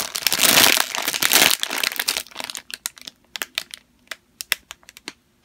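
Thin clear plastic bag crinkling as hands handle and squeeze the foam squishy sealed inside it. After about two and a half seconds it thins out to scattered light clicks and crackles.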